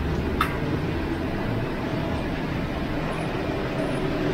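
Steady roar of lit gas wok burners and a kitchen exhaust hood, with a single short click about half a second in.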